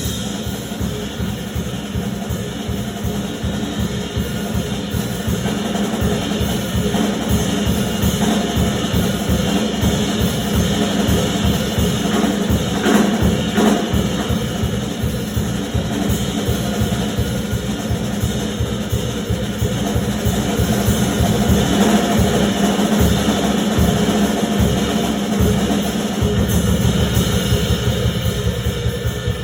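Live big band music with the drum kit to the fore: busy, fast bass drum and snare strokes with cymbals.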